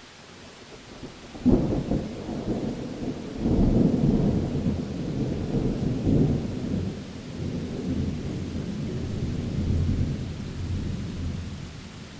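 Thunder: a sharp crack about a second and a half in, then a long rolling rumble that swells and slowly fades, over a steady hiss of rain.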